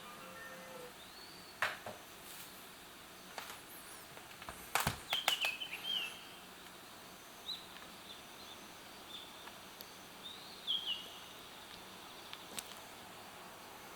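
Wild birds giving short, scattered chirps and brief downward-sliding call notes, with a few sharp clicks among them, the loudest about five seconds in.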